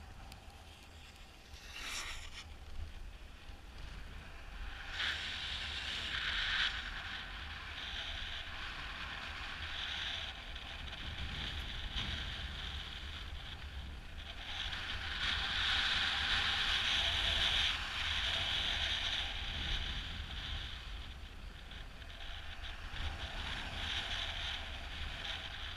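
Skis hissing and scraping over packed snow on a downhill run, swelling and fading with the turns, over a low rumble of wind buffeting a GoPro microphone.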